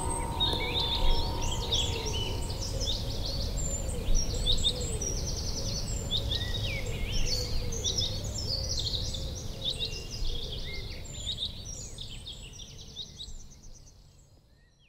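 Several small birds chirping and trilling over a steady low outdoor rumble, all fading out near the end.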